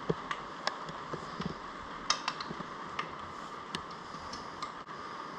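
Scattered light metallic clicks and taps, unevenly spaced, from bolts and hand tools being handled while starting the bolts of a Screamin Eagle air intake, over a steady background hum.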